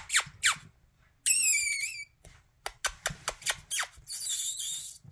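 Quick sharp clicking made to coax puppies over, in two runs of about five clicks a second, with a short high wavering squeak between them.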